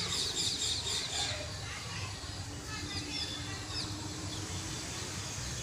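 A small animal's rapid run of high-pitched chirps that stops about a second in, followed by a few fainter scattered chirps, over a steady low rumble.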